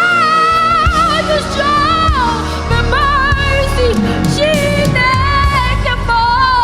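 A woman singing a slow gospel worship song with vibrato and gliding held notes, over instrumental accompaniment with low sustained bass notes that come in about a second in.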